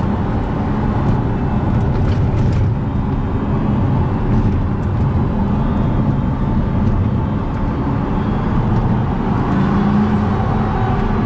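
Pagani Huayra's twin-turbo V12 running steadily at a cruise, heard from inside the cabin, under heavy road and tire noise from very loud tires.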